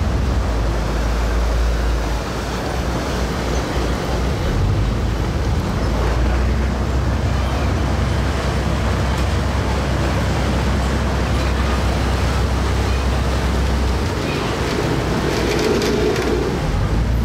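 Ferry's engine running with a steady low rumble under a wash of wind and water noise. The rumble drops back twice, about two seconds in and again near the end.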